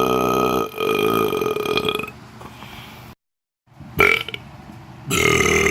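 A person's long, deliberate burps in a row. One drawn-out, strongly pitched belch ends about half a second in and a second one lasts about a second and a half. After a brief silence a short, sharp burp comes at about four seconds, and another long one starts near the end.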